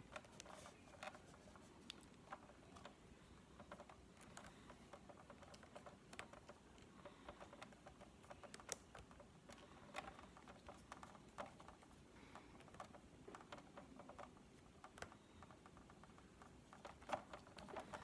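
Faint, scattered light clicks and taps of small plastic parts being handled, a few slightly louder near the end.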